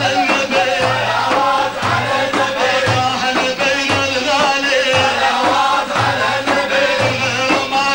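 Sufi devotional chant (madih) sung over hand percussion, with a low beat about once a second.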